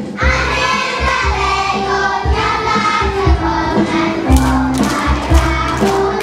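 A group of young children singing together into stage microphones over a backing track with a steady beat.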